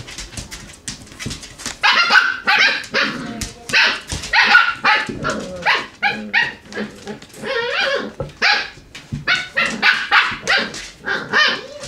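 Samoyed puppies yipping and barking at play, a long run of short, high, repeated yaps about two a second, after a second or two of light clicks.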